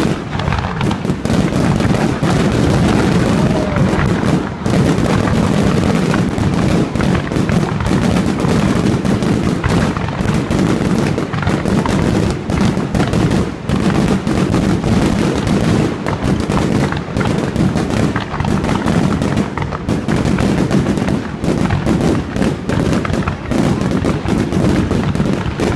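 Fireworks display: a dense, unbroken barrage of bangs and crackling bursts going off one after another.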